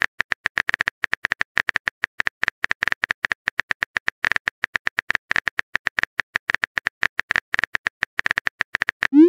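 Chat app's keyboard typing sound effect: rapid, irregular key clicks, about ten a second, each a short high tick, as a text message is typed. Near the end a short rising swoosh.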